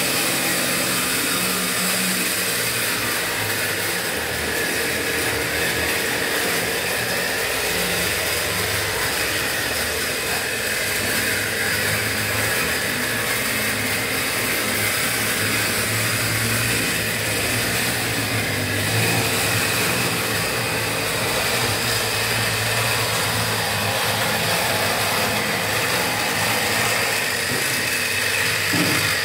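Model BB 305 diesel locomotive running round the layout with its train of wagons: a steady mechanical hum of its small motor and wheels on the track.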